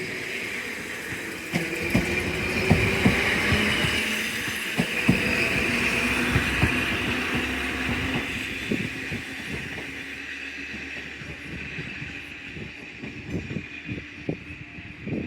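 A train running on the rails, with many short clicks of the wheels over the track and a tone that slowly falls in pitch. The sound builds over the first few seconds, then slowly fades.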